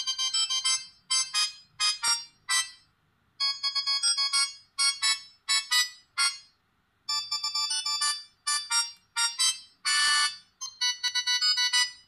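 Siemens SF65 clamshell phone playing a synthesized ringtone melody through its built-in speaker: quick, bright phrases of short notes with brief gaps, thin and without bass, stopping near the end.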